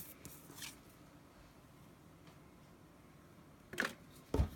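Hockey trading cards being handled: a couple of brief card slides or rustles, then a soft low thump near the end.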